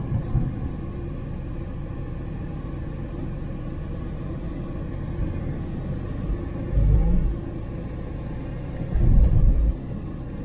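A car driving on the road, giving a steady low rumble, with two louder low thumps, one about seven seconds in and another about two seconds later.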